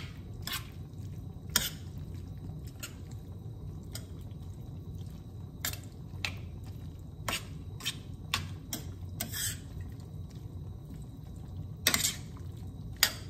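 A metal slotted spoon stirring creamy penne in a stainless-steel skillet: irregular clicks and scrapes of the spoon against the pan, with the wet squish of the cream sauce, over a steady low hum.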